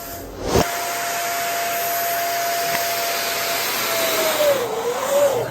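A sharp pop about half a second in, then a steady rush of air with a thin whining tone that dips and wavers in pitch near the end.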